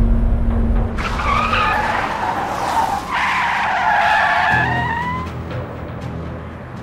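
Car tyres screeching under hard braking for about four seconds, starting about a second in and fading out, after a low rumble at the start.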